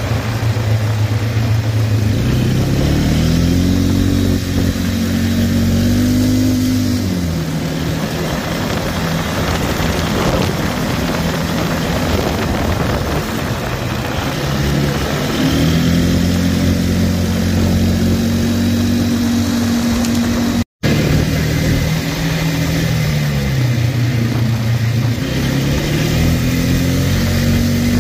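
ATV engine running while riding, its pitch climbing and dropping back several times as the throttle is opened and eased, over a steady rush of noise. The sound cuts out for an instant about three quarters of the way through.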